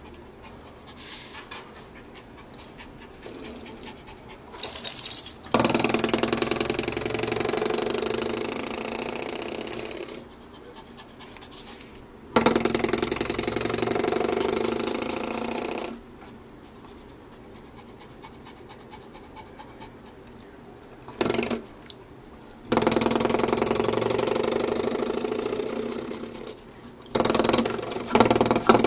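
Two small dogs growling and snarling at each other in three long bouts of several seconds each, with a couple of short bursts between; the reunion has turned into a scuffle.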